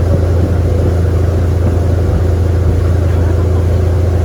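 Sightseeing boat's engine running steadily, a constant deep hum with water and hull noise over it.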